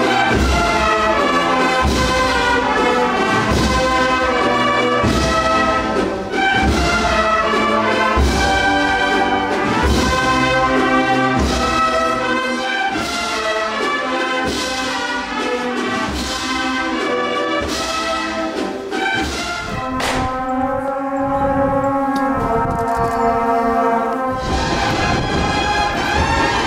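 Brass band playing a slow processional march, with a drum beating about once a second. The drum drops out for a few seconds about twenty seconds in while the brass goes on.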